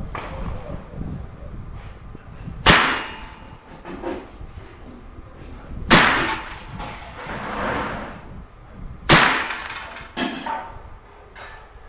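Rock Island Armory TM22 .22LR semi-auto rifle fired slowly with Remington Golden Bullets: three sharp shots about three seconds apart, each ringing briefly, then two fainter cracks near the end.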